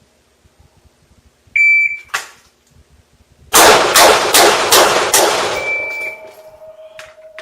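A shot timer beeps once, then a handgun fires five shots in quick succession, about 0.4 s apart, with ringing after them: a timed rapid-fire string in the 3-5-7 drill.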